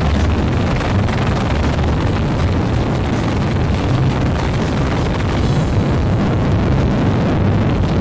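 Sikorsky CH-53E Super Stallion heavy-lift helicopter hovering low overhead, with its three turboshaft engines and seven-blade main rotor giving a loud, steady roar while it picks up a slung load.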